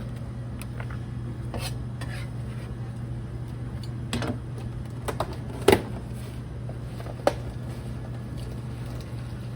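Kitchen utensils and dishes clinking and knocking now and then, with the loudest knock about halfway through and another a little later, over a steady low hum.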